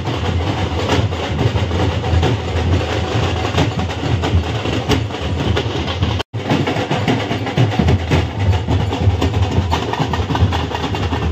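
Loud, overloaded din of a wedding procession in the street: a heavy low rumble with procession music and crowd noise mixed in.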